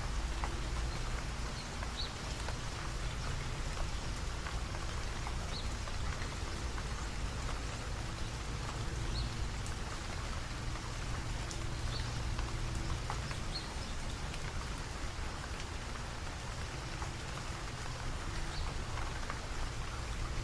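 Steady rain falling, with scattered sharper drips among the patter and a steady low rumble underneath.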